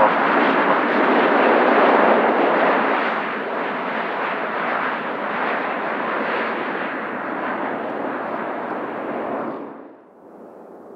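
De Havilland Canada Dash 8-400 turboprop's engines and propellers running loudly as it rolls out on the runway after landing. The sound is loudest about two seconds in, eases slowly, then cuts off suddenly near the end, leaving only a faint hum.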